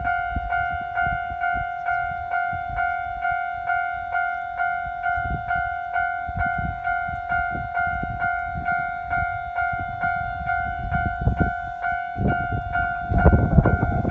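Japanese level-crossing warning bell ringing steadily at about three strokes a second. Beneath it a Joso Line diesel railcar rumbles closer, with wheel clatter that grows loudest about a second before the end as the train passes the crossing.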